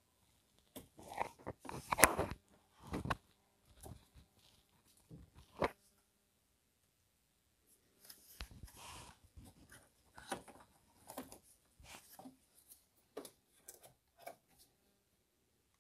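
Rubber hoses being pulled out of the plastic clips on a car's radiator fan cowling by gloved hands: irregular plastic clicks, rustling and scraping, with the sharpest click about two seconds in.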